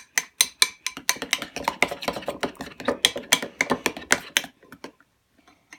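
A utensil stirring a soupy glue-and-lotion slime mixture in a bowl, clinking rapidly against the bowl, about five clinks a second, stopping near the end.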